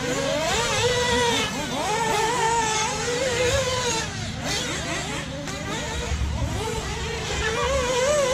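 Radio-controlled racing buggies running on a dirt track: several motors whining at once, each rising and falling in pitch as the drivers throttle up and lift.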